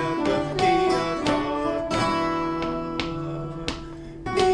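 Acoustic guitar music: plucked notes, struck roughly every half second to second, over a sustained low chord tone.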